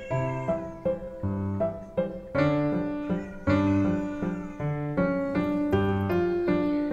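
Piano music: a gentle melody of single notes over low chords, struck at an even pace of about two to three notes a second.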